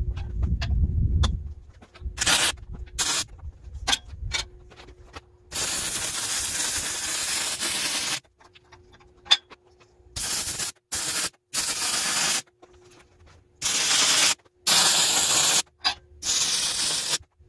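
MIG welding with a Miller Millermatic 252 on steel: the arc's hissing crackle comes in bursts that start and stop abruptly. There are a couple of short tacks first, then one longer bead of about two and a half seconds, then a run of several short welds.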